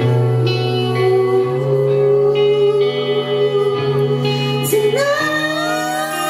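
Live pop-rock band playing a passage without lyrics: held chords over a bass line that moves to a new note every second or two, with a note sliding upward about five seconds in.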